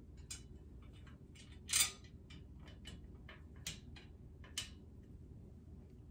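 Light clicks and taps of a drawer dresser's white frame pieces being handled and fitted together, with one louder scraping knock about two seconds in and two sharper clicks later on.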